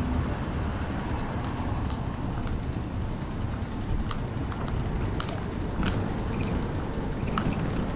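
Steady wind and road noise on a bicycle-mounted camera while riding, with car traffic mixed in.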